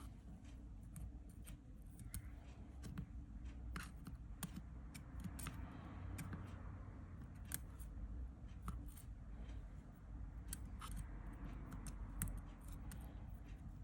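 Faint, irregular small clicks and scrapes of a small tool working inside a phone's USB-C charging port, cleaning out debris.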